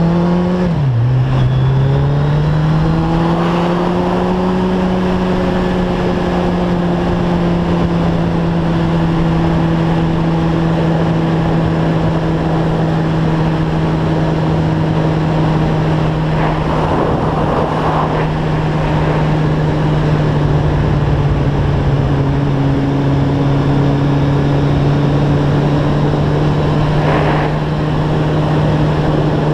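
Sport motorcycle engine pulling hard, dropping in revs at an upshift about a second in, then climbing again and settling into steady cruising revs. Wind rush runs under it.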